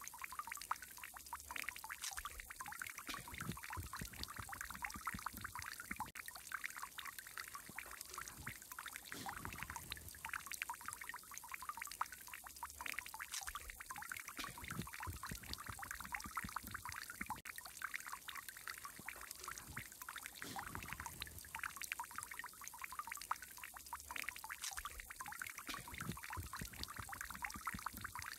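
Water fountain running: a steady stream of water splashing and trickling into a pool.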